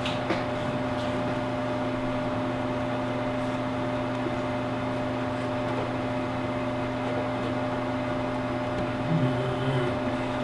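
Steady machine hum of equipment in a small room, a constant drone with a few fixed tones. There are a couple of light clicks at the start and a faint low murmur near the end.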